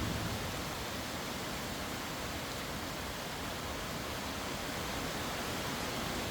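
Steady, even hiss of background noise with no distinct events or tones.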